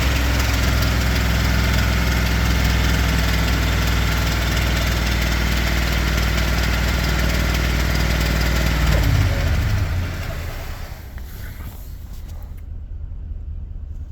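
2022 Ford F-250's 7.3-litre gasoline pushrod V8 idling steadily, with the ticking/knocking the owner suspects is bad lifters. About nine seconds in, the engine sound stops, leaving a quieter low rumble.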